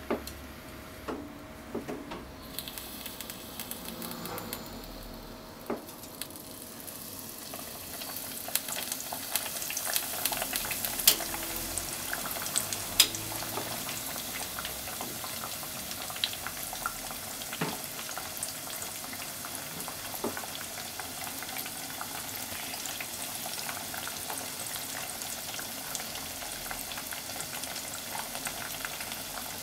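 Tonkatsu (breaded pork cutlet) deep-frying in a pot of hot oil. Quiet with a few clicks at first, the sizzle builds over several seconds, with a few sharp pops about a third of the way in, then holds as a steady, dense frying sizzle.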